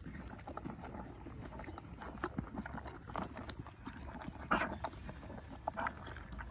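Horses eating hay: irregular crunching and rustling, with a louder brief noise about four and a half seconds in.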